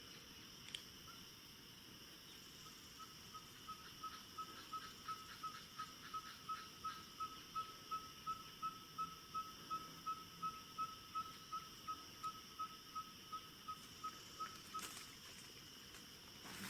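A bird repeating one short whistled note about three times a second for roughly twelve seconds, the notes steady in pitch, over a steady high drone of insects.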